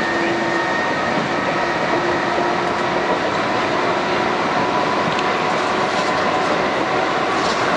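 Electric commuter train running along the line, heard from inside the carriage: a steady rumble and rattle of the wheels on the track with a faint steady whine.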